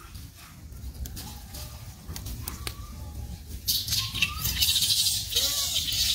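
Crinkling and rustling of a plastic wrapper as a baby macaque pulls at it and chews it, growing louder about two-thirds of the way through. A few faint, short, high chirps sound over it.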